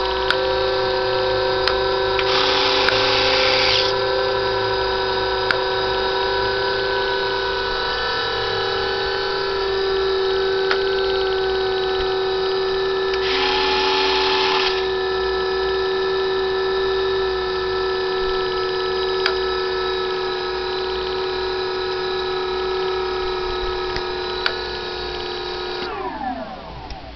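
The twin electric motors and propellers of a Dynam Cessna 310 model plane run steadily with a two-toned whine, the two motors at slightly different pitches. Near the end they spin down together, the whine falling until it stops. Two short buzzing spells come about two seconds in and about thirteen seconds in.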